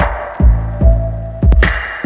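Electronic background music with a heavy kick drum beating about twice a second under a held synth tone.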